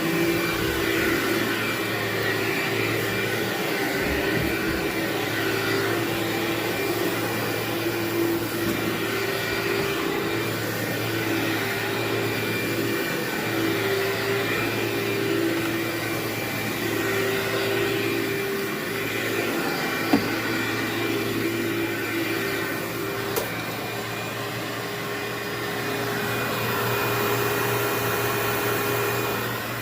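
Vacuum cleaner running steadily with a constant motor hum, with two brief sharp ticks about 20 and 23 seconds in.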